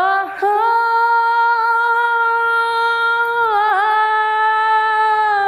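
A girl's unaccompanied voice singing a long held 'oh'. After a short break just after the start, it steps up to a higher note and holds it steadily for about five seconds, with a brief wobble in pitch near the end.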